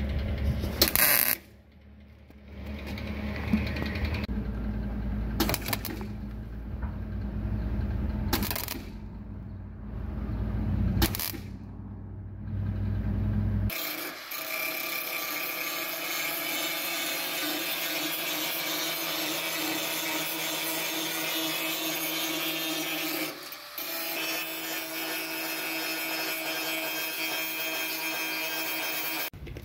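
Metalworking power tools on the sheet steel of a Suzuki Samurai fender, for the repair of rust holes. First a low steady hum broken by several short bursts of crackle. Then, from about fourteen seconds in until just before the end, a steady tool running with a bright whine.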